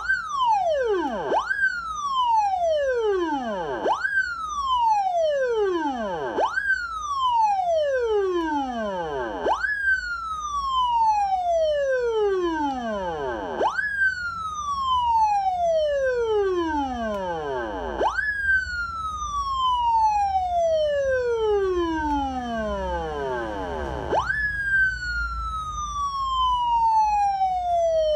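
Electronic 113 police-style siren wailing over and over: each wail jumps up sharply and then falls slowly in pitch. The falls get longer and longer, from about a second at the start to several seconds near the end.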